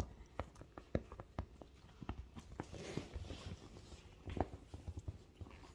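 A puppy moving about on a leather sofa: irregular soft taps and scuffs of paws and claws on the leather, with a brief rustle about three seconds in.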